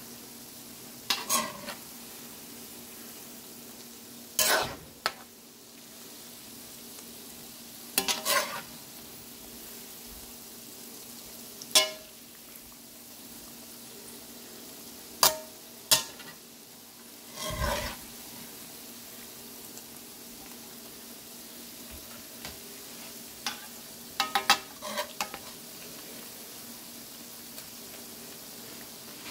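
Fish balls and kikiam frying in oil in a metal wok with a steady faint sizzle, while a metal spatula scrapes and clinks against the wok every few seconds as they are stirred, in a quick cluster of strokes near the end.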